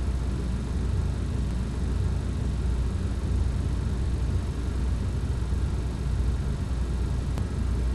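Steady flight-deck noise of a Boeing 737NG descending on approach: an even low rumble with a fainter hiss above it.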